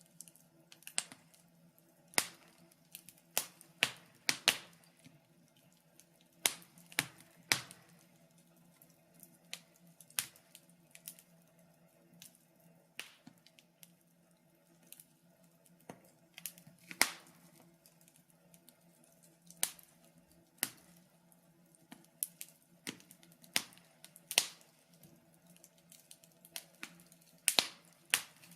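Wood fire crackling: irregular sharp pops and snaps, about one or two a second, some much louder than others, over a faint steady low hum.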